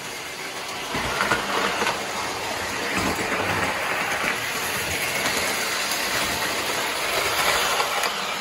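American Flyer wide gauge toy train running on three-rail metal track: a steady rattling whir of motor and wheels over the rails, louder from about a second in and loudest near the end as a car passes close by.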